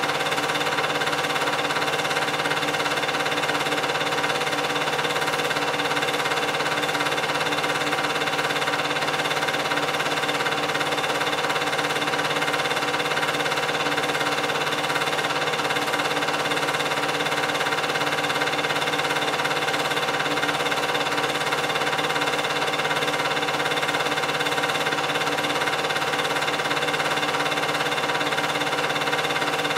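8mm film projector running steadily: the constant mechanical sound of its motor and film transport, with several steady tones and no change in level.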